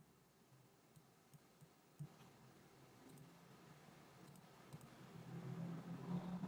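A few faint, sharp computer mouse clicks over near silence, the last about two seconds in. A faint low hum rises toward the end.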